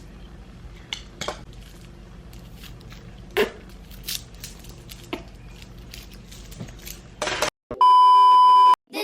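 Light clicks and clinks of small items being handled and set down over a low steady hum, then near the end about a second of loud, steady, pure-tone beep like a censor bleep.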